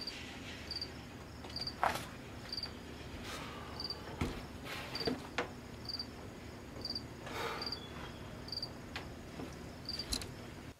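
A cricket chirping: short high chirps repeating about once a second. A few knocks and clicks among them as a door is unlatched and opened.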